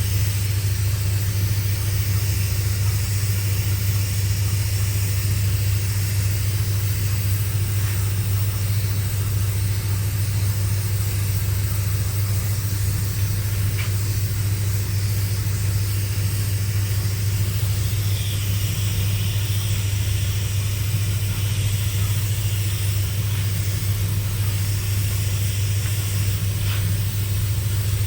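A machine's electric motor running steadily, a strong low hum that does not change.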